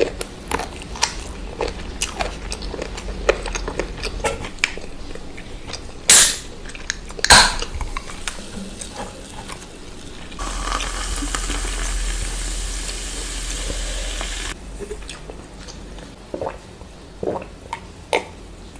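Close-up eating sounds: small clicks and clinks of utensils or hands against a plate, with chewing. There are two loud sharp knocks about six and seven seconds in, and a steady hiss lasting about four seconds from roughly ten seconds in.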